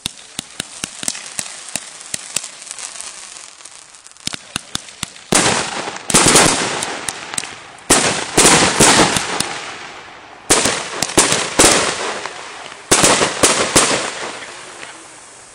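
Consumer 1.4G aerial fireworks going off: scattered sharp bangs at first, then from about five seconds in, four or five loud dense volleys of rapid popping, which fade near the end.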